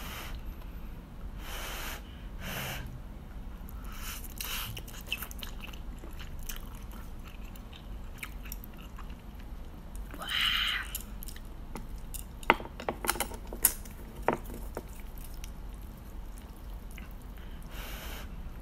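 Close-up mouth sounds of someone eating instant noodles: wet chewing and slurping, with a longer rushing sound about ten seconds in. A few sharp clicks come between about twelve and fourteen seconds in.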